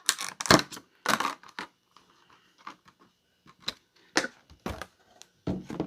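Trading-card box packaging being handled: a string of irregular crinkles, scrapes and knocks of cardboard and wrapping as its contents are taken out.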